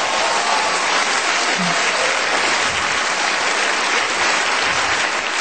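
Stand-up comedy audience applauding steadily in response to a punchline.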